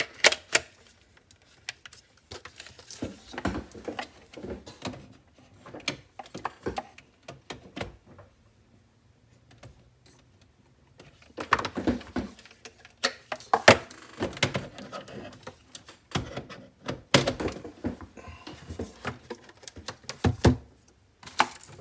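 Irregular clicks, knocks and light rattles of hands handling plastic plugs, a plug-in power meter and cables on a desk, with a quiet gap in the middle and busier handling near the end.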